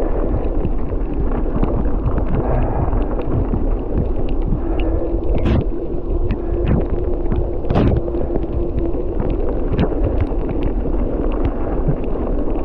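Wind buffeting the microphone over the steady rumble of mountain bike tyres rolling on snow and ice, with scattered clicks and rattles from the bike and two sharper knocks around the middle.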